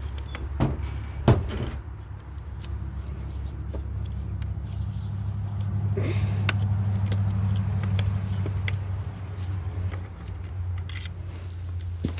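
Scattered clicks and knocks of parts being handled, the sharpest about a second in, over a low steady engine-like hum that swells in the middle.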